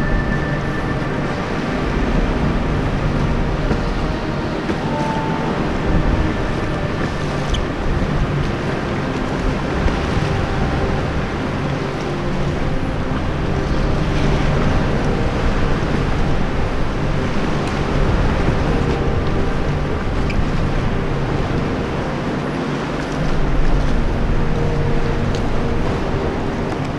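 Sea water sloshing and lapping around an inflatable kayak, with the splashes of double-bladed paddle strokes.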